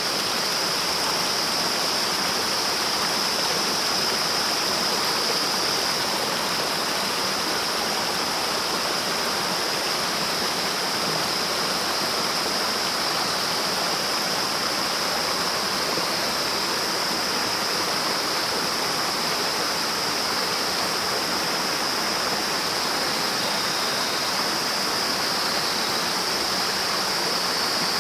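Waterfall pouring steadily, a constant rush of falling water, with a steady high-pitched whine above it.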